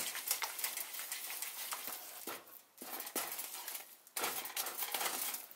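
Nylon slotted spatula stirring thick, bubbling Mysore pak batter (gram flour, ghee and sugar syrup) in a nonstick pan: soft scraping and squelching with small clicks, breaking off briefly twice. The mixture is near the setting stage, ready to come off the heat.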